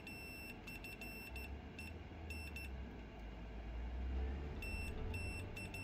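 Fluke digital multimeter's continuity beeper giving a run of short, uneven beeps, with a gap of about two seconds midway, as a push-button switch across its probes is pressed and released. Each beep is the switch's contacts closing, showing the switch works.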